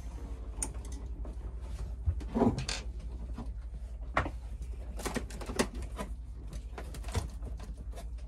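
Scattered clicks, taps and knocks of a screwdriver and small metal parts against a marine air-conditioning unit as its mounting screws are taken out, over a steady low hum.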